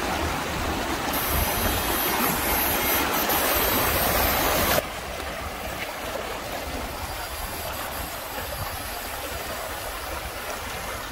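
Shallow river rapids rushing over rocks, a steady wash of water. About five seconds in, the sound drops suddenly to a softer rush.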